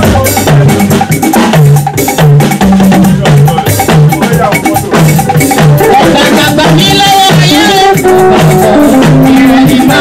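Upbeat music with drums and shaker rattles over a repeating bass line.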